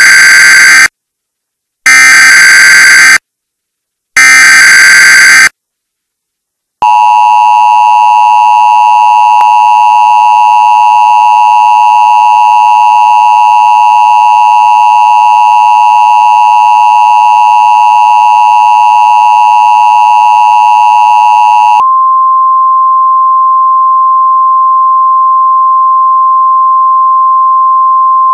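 Emergency Alert System alert opening: three short screeching bursts of SAME header data with pauses between them, then the harsh, buzzy EAS attention tone held steadily for about fifteen seconds. About three quarters of the way through it switches abruptly to a single steady pure tone, like the NOAA Weather Radio 1050 Hz warning tone.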